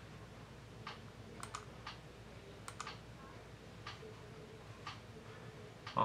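Faint, scattered clicks of keys or buttons being pressed on a computer setup, about ten at uneven intervals.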